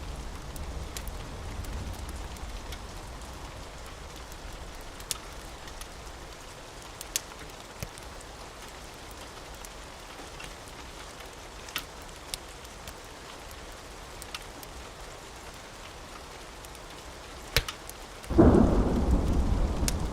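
Steady rain with thunder: a low rumble fades away over the first few seconds, a few sharp crackles of a wood fire pop now and then, and a loud thunderclap breaks out near the end.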